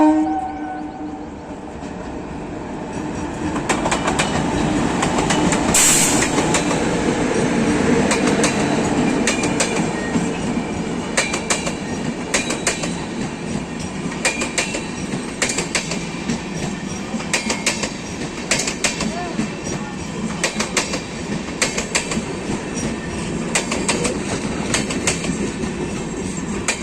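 Express train hauled by a WAP-4 electric locomotive passing through a station at speed without stopping. A brief horn note sounds right at the start, the rumble builds as the locomotive comes by, then the wheels of the passing coaches keep up a steady clickety-clack over the rails.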